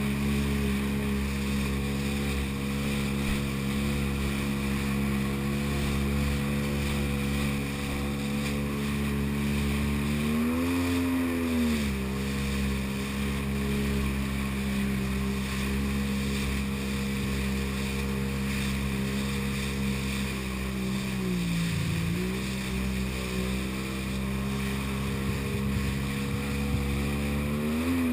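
Jet ski engine running steadily at speed. Its pitch rises and falls briefly about eleven seconds in, dips about twenty-two seconds in, and climbs again near the end.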